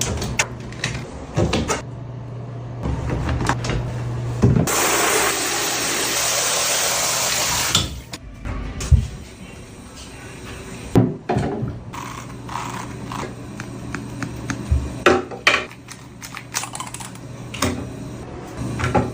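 Handheld shower spraying water for about three seconds, cutting off suddenly, amid scattered knocks and bumps of handling during a puppy's bath, over a steady low hum.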